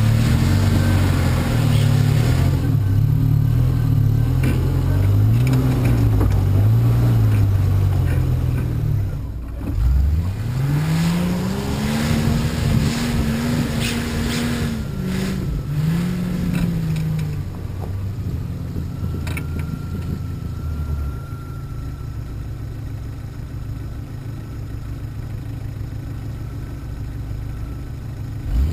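An off-road 4x4's engine rock crawling, revving up and down unevenly under load. About ten seconds in it revs sharply, and in the last third it settles to a steady idle before one more quick rev at the end.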